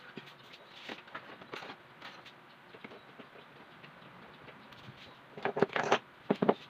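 Wire fan guard being handled and fitted onto an electric fan: scattered light rattles and clicks of the metal grille, then a louder clatter near the end in two short bursts.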